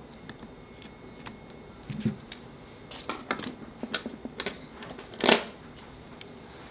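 Hands handling small hard parts: scattered light clicks and knocks, thickest between about three and five seconds in, with one louder knock near the end.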